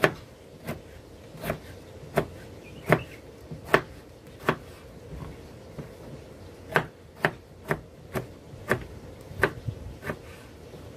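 Kitchen knife chopping on a cutting board in single, separate strokes a little under a second apart, about fifteen in all, with a short pause around the middle.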